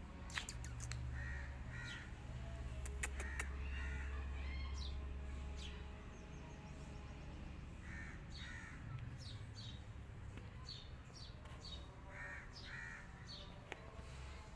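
Birds calling: four pairs of short harsh calls a few seconds apart, with quick high chirps scattered between them, over a low hum during the first half.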